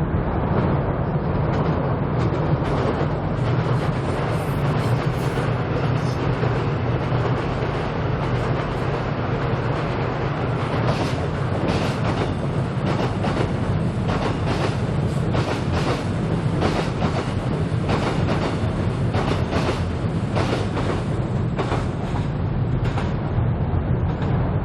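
Seoul Subway Line 7 train crossing the Cheongdam Bridge over a steady low rumble. From about eleven seconds in until near the end there is a run of sharp, irregular clickety-clack from the wheels passing over rail joints.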